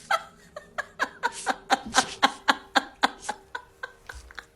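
A quick series of short huffing voice sounds in an even rhythm, about four a second.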